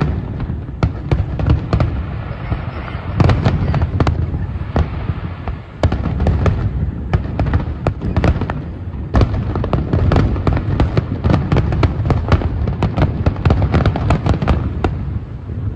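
Aerial fireworks display going off: a rapid run of sharp bangs and crackles over a continuous low rumble, growing densest in the second half and thinning out near the end.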